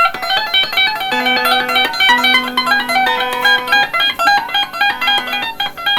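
Electric guitar fingerpicked through an amplifier on a clean setting: a quick run of single plucked notes, several a second, over a few held lower notes.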